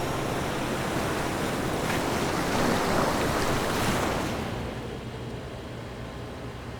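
Ocean surf washing on a beach, with wind on the microphone. The wash swells about three to four seconds in, then falls away to a quieter, duller background.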